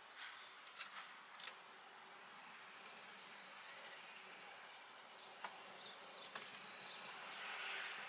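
Quiet room tone with a few small, sharp clicks of metal hose clips and pliers being handled.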